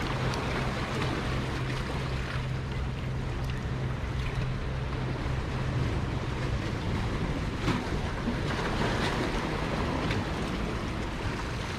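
Ocean waves washing in, with wind on the microphone. A low steady hum runs underneath and stops about two-thirds of the way through.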